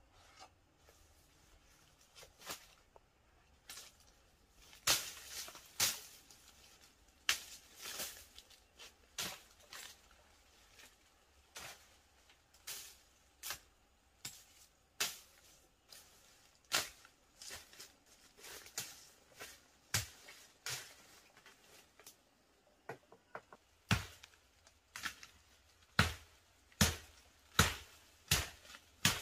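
Twigs and brush cracking and rustling as a person pushes and works through dense jungle undergrowth: sharp snaps about once a second, with a few heavier thuds near the end.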